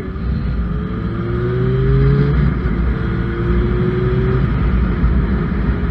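Motorcycle engine accelerating: its note rises, drops at a gear change about two and a half seconds in, then rises again. Wind rumbles on the helmet-mounted camera microphone throughout.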